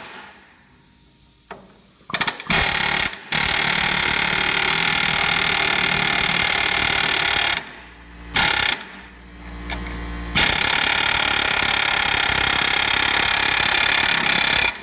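Pneumatic air hammer with a drift punch hammering a ground-off rivet out of a truck's old ball joint, in bursts: short blips about two seconds in, a run of about four seconds, a few short bursts, then another long run near the end.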